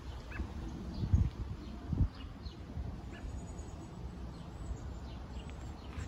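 Outdoor yard ambience: faint, short bird chirps scattered through, over a low rumble, with two dull low thumps about one and two seconds in.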